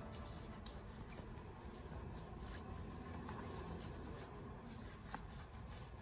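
Hands rubbing together, working in hand cream: a soft, steady rubbing.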